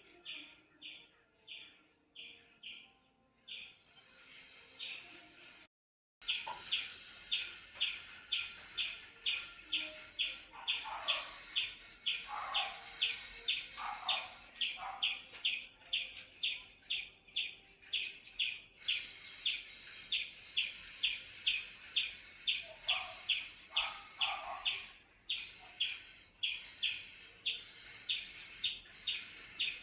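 Indian palm squirrel giving its alarm chips: sharp, high chip calls repeated steadily about two or three times a second, louder after a brief dropout about six seconds in. A few lower, falling calls come in among them twice.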